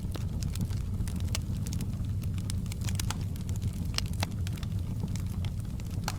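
Wood fire burning in a fireplace: a steady low roar of flames with irregular sharp crackles and pops, several of them close together.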